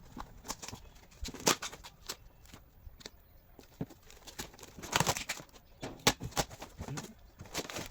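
A parcel being handled and opened: irregular taps, clicks and rustles of packaging, loudest about five and six seconds in.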